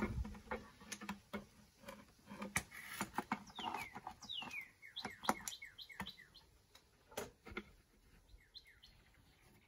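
A long-reach metal bridge clamp being released and drawn out through a ukulele's soundhole, with sharp clicks and knocks of metal and wood. A run of short high chirps falling in pitch comes through the middle.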